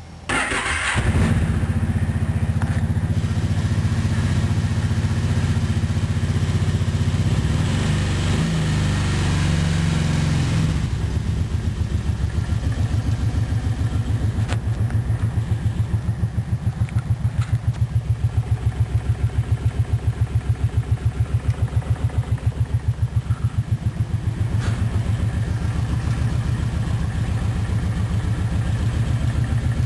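Kawasaki Brute Force 750 ATV's V-twin engine catching right at the start and running faster for about ten seconds, then settling to an idle with an even, pulsing beat. It makes a clicking at idle that the owner cannot explain and suspects comes from the valves or tappets.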